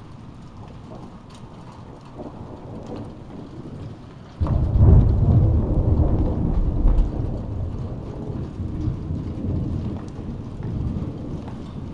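Steady rain falling, then about four seconds in a sudden clap of thunder that rumbles loudly for a few seconds and slowly dies away under the rain.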